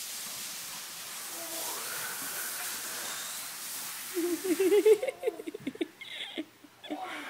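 Plastic laundry basket sliding across carpet with a steady hiss that stops abruptly about five seconds in. Just before it stops, a baby's voice calls out in a few short rising and falling squeals, followed by a few light knocks.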